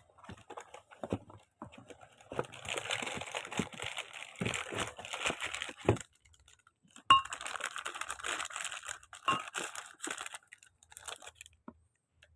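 Workshop hand-tool work on metal parts: two long stretches of rapid crackling rattle, with scattered clicks and a few sharp metallic clinks, the loudest a ringing clink about seven seconds in.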